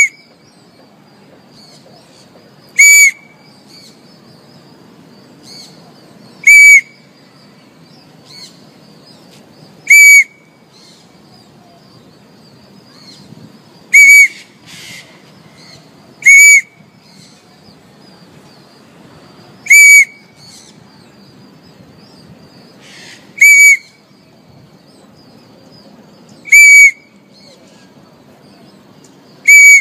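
Parrot giving loud, shrill calls, one short note that rises and falls, repeated about every three seconds, about ten in all.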